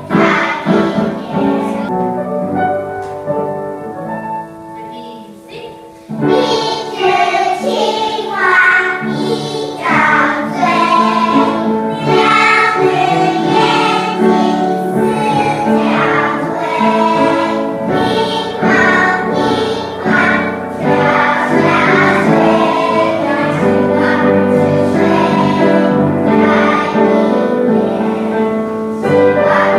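A group of children singing a song together, quieter for a few seconds near the start, then loud and steady from about six seconds in.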